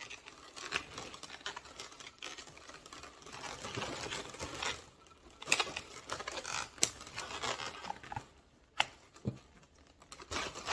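Latex twisting balloons being handled: rubbing and crinkling against each other with a few sharp clicks, as the end of a pink 260 balloon is knotted around the balloon stems.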